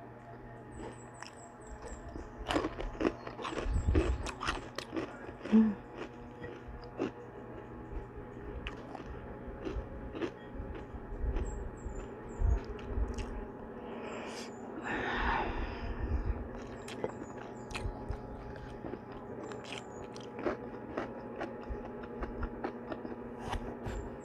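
Close-miked crunching and chewing of crispy chicharon (fried pork rinds): irregular sharp crackles as pieces are bitten and chewed, densest a few seconds in, with a softer rustling stretch around the middle.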